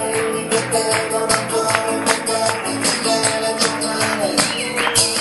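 Live acoustic guitar strummed in a steady rhythm, with men singing along into microphones.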